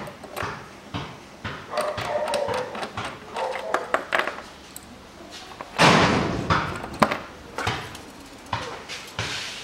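Small clicks and knocks of a hand tool and fingers working the bolts on a plastic engine cover, with a loud scraping rustle about six seconds in.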